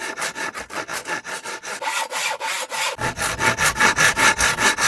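Hand saw cutting wood in quick back-and-forth strokes, about five a second, turning louder and fuller about three seconds in.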